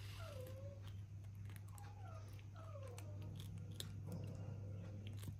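Pet baby monkey giving several short, soft calls, mostly falling in pitch, while it eats, with faint chewing clicks over a steady low hum.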